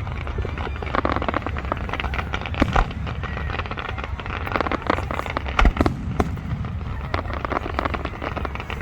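Aerial fireworks crackling densely throughout, with several louder bangs; the strongest come about three and five and a half seconds in.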